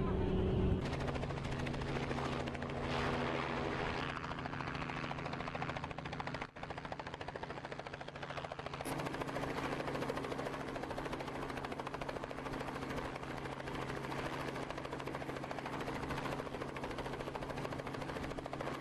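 Helicopter in flight: the rotor beats rapidly and evenly over a steady low engine hum, with a brief dropout about six and a half seconds in.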